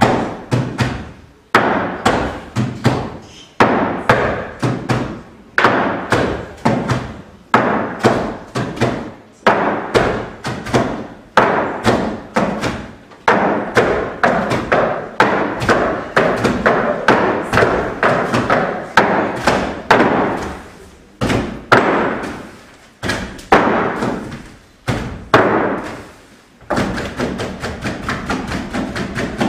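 Rhythmic percussion of sharp thuds and knocks, several a second, each ringing briefly in a reverberant hall. Near the end it shifts to quicker, lighter, more even taps.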